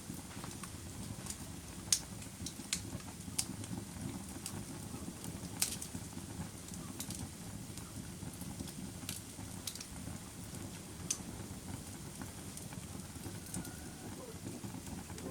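Campfire burning with a steady low rumble of flames and sharp, irregular crackles and pops of burning wood, a couple of them louder than the rest.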